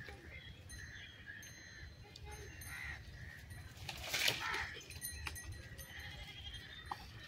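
Animal cries over a steady outdoor background, the loudest a single cry about four seconds in.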